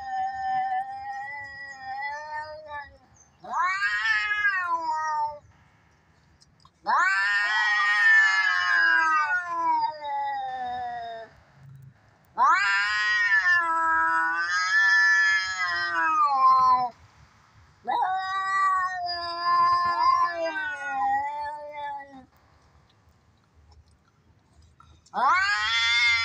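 Domestic cat yowling in long, drawn-out caterwauls of the kind cats make when squaring off to fight: about six calls, each lasting one to four seconds and wavering or sweeping up and down in pitch, with short quiet gaps between them.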